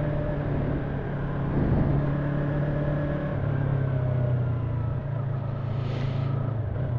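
Yamaha YZF-R3's parallel-twin engine running at steady cruising revs while riding. The engine note drops a little about halfway through and rises again near the end.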